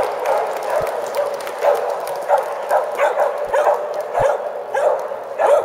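Soft Coated Wheaten Terriers barking in short repeated yaps, one every half second to a second, over a steady background of hall noise.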